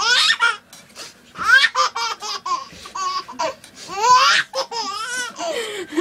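Young child laughing hard in several high-pitched bursts with short breaks between them.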